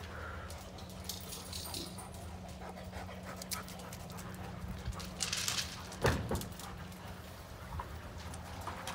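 Dogs panting and whimpering with excitement around a stock tank of water, with water splashing as a dog moves in it, loudest about six seconds in.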